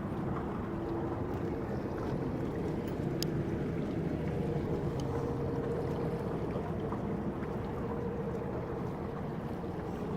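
Small ride boat running steadily: a continuous low rumble with a hum on top.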